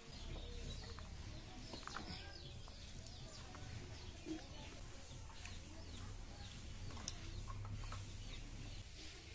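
Birds chirping in many short calls over a steady low rumble.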